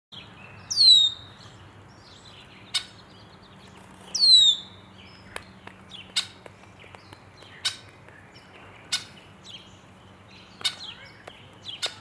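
Male red-winged blackbird calling: two loud down-slurred whistled calls, about a second in and about four seconds in, among short sharp call notes, over a faint steady low hum.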